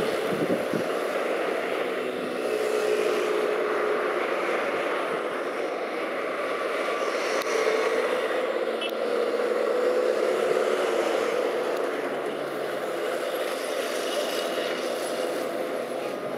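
City street traffic: car engines running and passing in a steady mix of engine hum and road noise, with hum lines rising and fading as vehicles go by.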